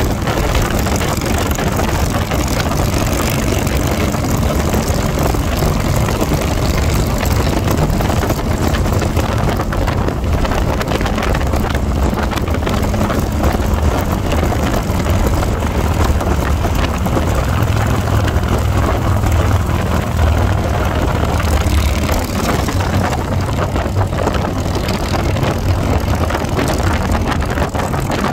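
Harley-Davidson Fat Bob 114's Milwaukee-Eight V-twin, fitted with an S&S cam and S&S exhaust, running steadily at road speed, with wind rushing over the microphone.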